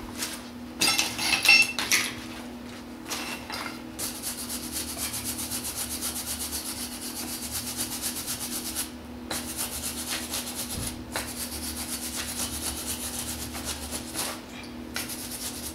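Campbell Hausfeld 105 MIG welder arc crackling steadily while a bead is run, with a few short sputtering starts in the first two seconds and brief stops around nine and eleven seconds in. A steady low hum runs underneath.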